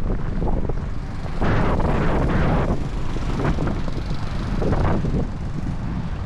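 Wind buffeting the microphone of a handlebar-mounted camera on a moving bicycle, with a steady low road rumble, swelling louder about one and a half seconds in and again near the end.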